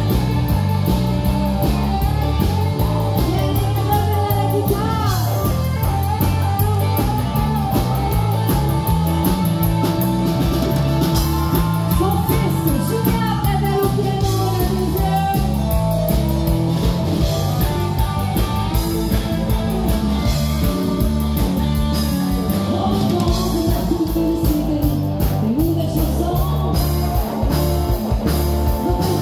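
Live band music with a steady drum beat and guitar under a woman's singing, picked up by a cellphone microphone.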